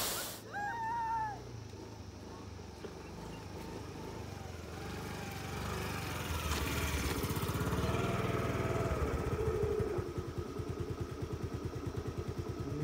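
Motorcycle engines running on a rough dirt road, getting louder a few seconds in, with the engine's beat turning into an even, rapid putter near the end.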